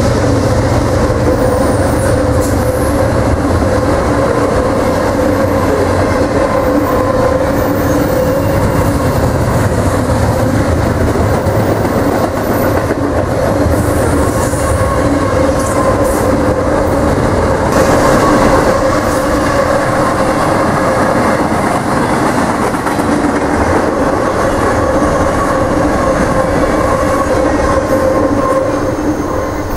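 Double-stack intermodal freight train's cars rolling past, a steady run of wheels on rail with a held ringing tone over it. The sound falls away near the end as the last car clears.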